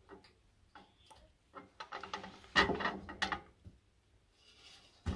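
Small clicks and rubs of a plastic tube connector and silicone tubing being handled and pushed into place on a boiler's metal fan housing, with a cluster of louder clicks a little after halfway.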